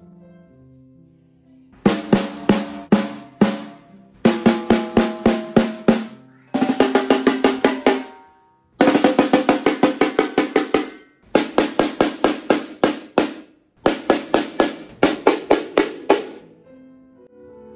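A 3D-printed one-piece snare drum played with sticks in six short bursts of quick strokes and rolls, the head ringing with a clear pitch after each stroke. Faint background music comes before and after the playing.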